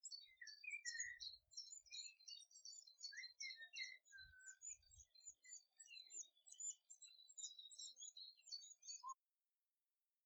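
Barn swallows twittering: a quick, continuous run of high chirps and warbles that cuts off abruptly about nine seconds in.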